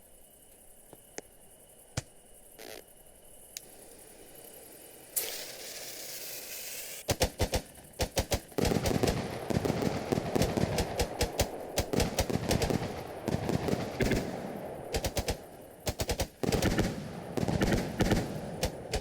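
Firecrackers going off: a short hiss, then a long run of rapid, irregular loud cracks, like a string of firecrackers, with a brief pause about two-thirds of the way through.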